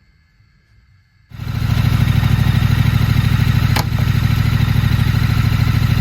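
Triumph Street Scrambler's 900 cc parallel-twin engine fires up about a second in and settles into a steady idle, with one sharp click midway.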